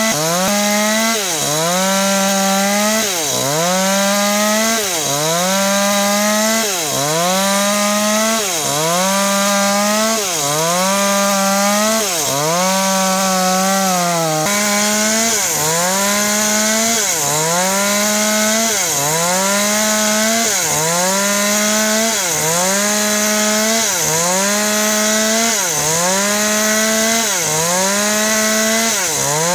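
Small two-stroke chainsaw ripping lengthwise along a very hard tropical hardwood beam. The engine note dips under load and recovers about once every second and a bit as the saw is worked through the cut.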